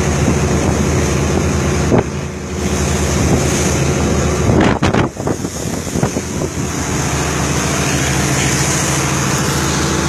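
Boat engine running steadily at sea, with wind buffeting the microphone. A sharp knock comes about two seconds in, and a short cluster of knocks about halfway through.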